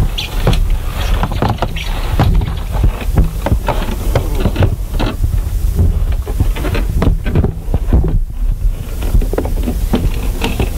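Irregular knocks and thuds over a low rumble, from people walking along a swaying rope-and-cable suspension walkway high in the forest canopy.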